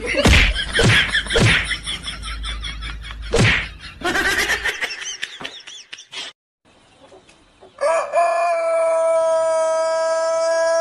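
A few sharp whacks over busy, jumbled sound, then after a brief break a single long, steady, high-pitched call that is held without a break for several seconds, like a drawn-out crow.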